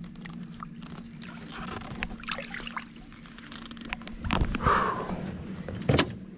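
Water splashing as a bass is lipped and lifted out of the lake beside an aluminum boat, with scattered clicks, then hollow knocks and clunks on the aluminum boat as it is brought aboard, the loudest near the end. A steady low hum runs under the first part and stops about four seconds in.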